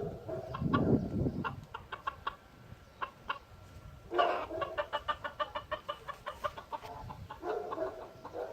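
Chickens clucking in rapid series of short clucks, densest from about four seconds in, with a low rumble about a second in.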